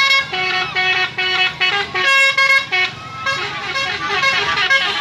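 Intercity bus's multi-trumpet 'telolet' air horn playing a short tune: a run of quick stepped notes, then a longer held note about two seconds in, ending about three seconds in.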